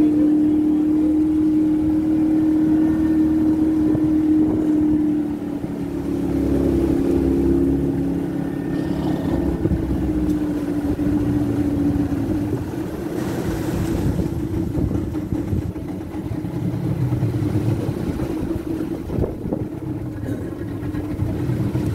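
Motorboat engine running steadily, heard on board, its pitch dropping slightly about five seconds in. After about twelve seconds the engine's tone fades under a rushing noise of wind and choppy water.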